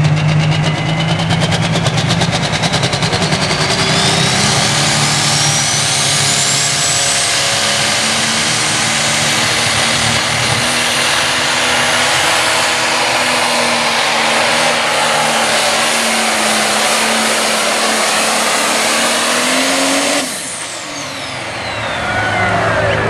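John Deere pro stock pulling tractor's turbocharged diesel engine running flat out under load as it drags the weight sled, with a high turbo whine climbing in pitch over the first several seconds. About twenty seconds in, the throttle is cut and the engine drops off suddenly, the whine falling away before the engine settles to a low idle.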